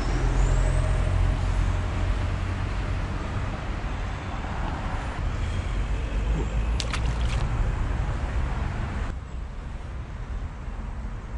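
Road traffic rumbling, with the low, steady running of a heavy vehicle's engine. There are a few sharp clicks about seven seconds in, and the sound drops off abruptly about nine seconds in.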